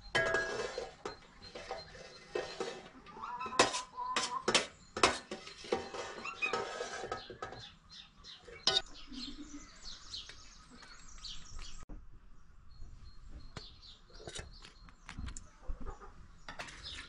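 Serving spoon scooping cooked rice from a pot onto a metal tray: scraping and clattering with several sharp metal-on-metal knocks, quieter after about halfway. Faint bird chirps are heard in the later part.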